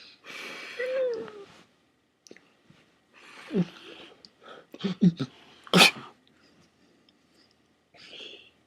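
People making weird noises with their voices and mouths: breathy hissing bursts and short falling vocal squeals, with one sharp, loudest blast about six seconds in.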